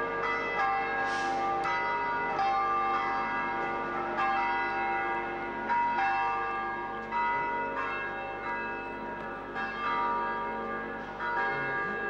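Church bells ringing: a steady series of strikes, each ringing on into the next.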